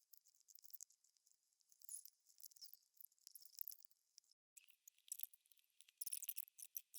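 Faint, scattered small clicks and clinks of laptop parts and screws being handled during reassembly, busier near the end.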